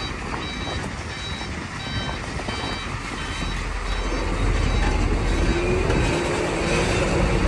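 Large box truck reversing, its reverse alarm beeping about twice a second. About halfway through, the truck's diesel engine rumble swells and covers the beeping as it pulls backward.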